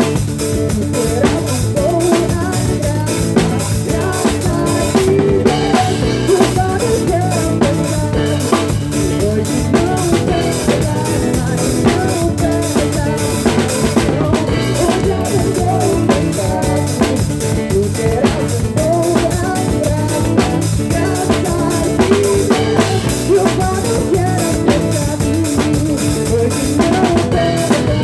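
Live pagode band playing: a drum kit keeps a steady, busy groove of snare and bass drum under bass and other pitched instruments.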